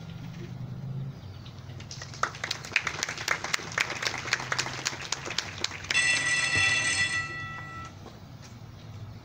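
Scattered hand-clapping from a small audience, a few seconds long. It is followed by a steady ringing tone of about two seconds that fades out, like a bell or chime cue.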